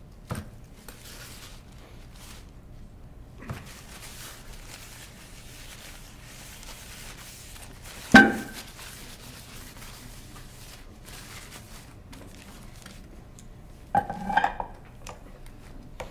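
Metal parts of a Hardinge cross slide and tools clinking and knocking on a table as they are handled. There is one sharp clank about eight seconds in and a quick cluster of knocks near the end, with a rag rustling against the metal in between.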